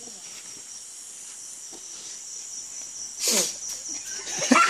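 Steady, high-pitched chorus of insects chirring in the surrounding vegetation. About three seconds in comes a short loud exclamation, and voices begin near the end.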